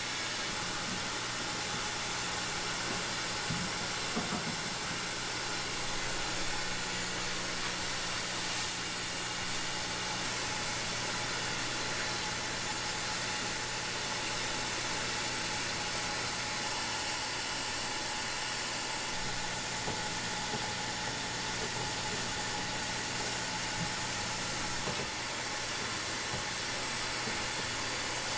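Tteokbokki cooking on a hot iron griddle: a steady hiss of simmering sauce, with a steady low hum underneath and a few faint knocks.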